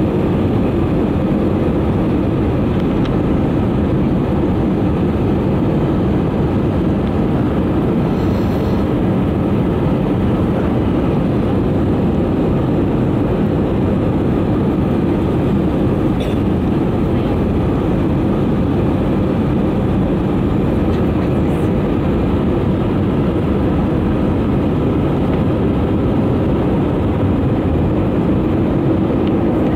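Airbus A320 cabin noise during the descent to land: a steady, deep drone of the jet engines and rushing air heard from a seat over the wing, with no change in level.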